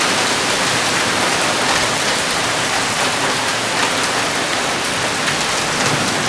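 Hail mixed with rain falling steadily on a concrete patio and lawn: a dense, even patter dotted with many small sharp ticks from the hailstones.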